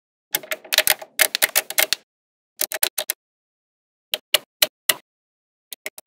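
Small magnetic balls clicking as they snap onto one another. A quick rattle of many clicks comes in the first two seconds, then short groups of single sharp clicks with silence between them.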